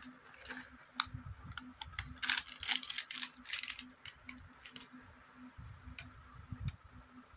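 Plastic candy wrapper crinkling and crackling as it is handled and shaken, busiest in the first few seconds, then sparser.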